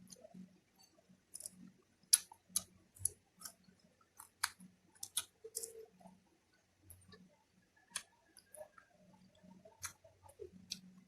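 Close-up eating sounds: chewing with sharp, irregular mouth clicks and smacks, most frequent in the first half.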